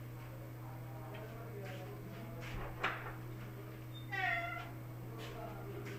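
A cat meows once, a short call about four seconds in. A little before it comes a single sharp click. A steady low electrical hum runs underneath.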